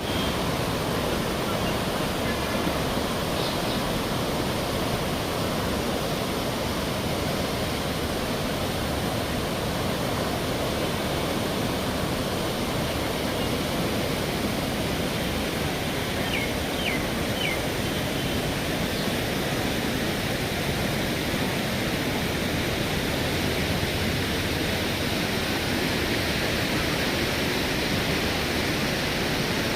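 River water rushing steadily, an even, unbroken hiss. A few faint, short high chirps sound about halfway through.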